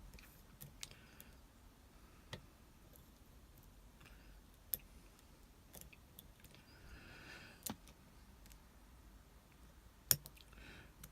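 Lock picks working the pins of an Abus 72/40 pin-tumbler padlock: scattered sharp metallic clicks at irregular intervals, with a short patch of light scraping about seven seconds in and the loudest click near the end.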